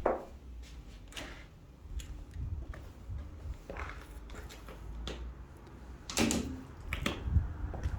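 A door being opened and handled, with scattered clicks and knocks and a low rumble of footsteps and handling; the loudest knock comes about six seconds in.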